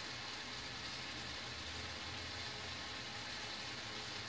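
Steady, even sizzling of peppers and tomatoes frying in oil in a steel pan on a gas stove.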